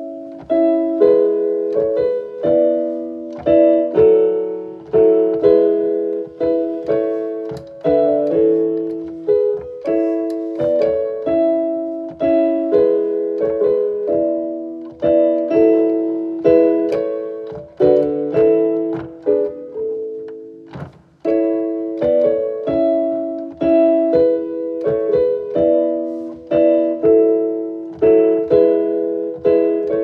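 Background piano music: a steady run of gently struck notes, each dying away, with a short break about twenty seconds in before it picks up again.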